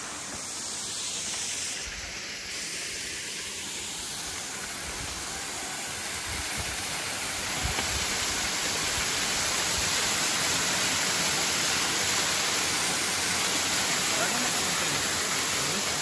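Steady rushing hiss of flowing water, getting somewhat louder about halfway through.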